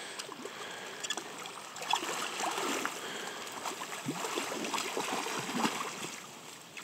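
Shallow creek water splashing and sloshing in short, irregular bursts as a wading angler lands a played-out chinook salmon at the bank, over the steady flow of the stream.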